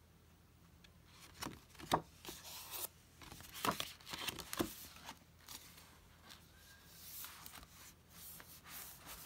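Pages of a hardback picture book being turned by hand and the book closed: paper rustling and rubbing with several sharp taps, the loudest about two seconds in.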